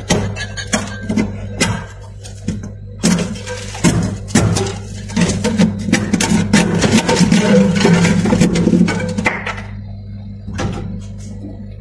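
Thick freezer frost being scraped and broken off the freezer wall: a run of crunchy scrapes and cracks, densest in the middle few seconds, over a steady low hum.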